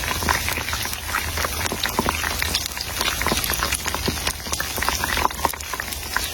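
Food cooking over heat, a dense steady crackling and bubbling like a boiling pot or sizzling pan, with a low hum underneath.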